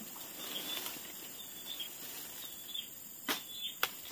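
Faint outdoor ambience with a few faint chirps, then several sharp clicks in the last second.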